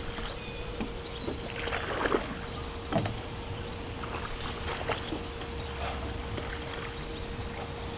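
Small splashes and sloshing in pond water, with two sharper splashes about two and three seconds in, over a steady faint hum.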